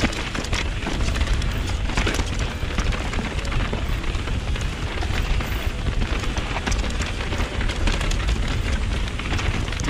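Mountain bike (Vitus Sommet VR) rolling fast down a dirt singletrack: a steady rumble of wind buffeting the GoPro's microphone, with the bike's tyres, chain and frame clattering in many short clicks and rattles over the bumps.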